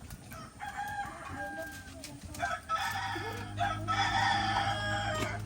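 Rooster crowing twice: a first crow about half a second in, then a longer, louder crow starting about two and a half seconds in. A low steady hum comes in under the second crow.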